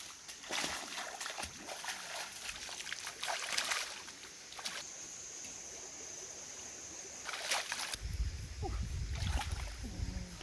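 Water splashing and sloshing in shallow water with irregular small clicks. A steady high-pitched tone holds for a few seconds in the middle, and a low rumble sets in near the end.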